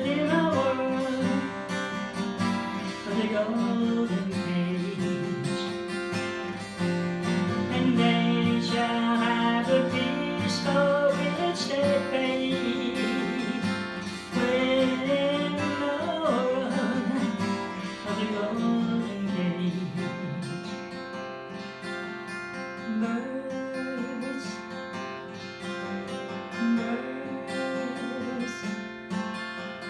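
Acoustic guitar strummed steadily, with a sung melody over it through roughly the first twenty seconds; the guitar carries on alone toward the end.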